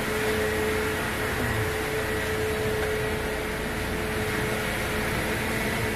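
Mercedes-Benz C200 engine idling steadily, a faint steady whine over its hum. It runs with a newly fitted power steering pump, which the mechanic calls smooth now that the old pump's growling bearing is gone.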